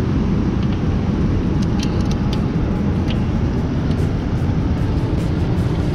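Steady low rumble of wind and water noise, with scattered faint light ticks as a baitcasting reel is wound in.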